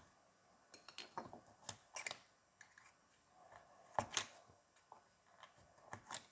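Faint, scattered light clicks and scrapes of a pick working seals out of a Fox Float shock's alloy air can.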